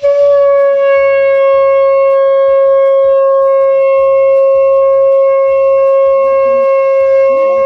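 A conch shell (shankha) blown in one long, loud, steady note with a rich ring of overtones, starting suddenly and settling slightly in pitch in the first moment.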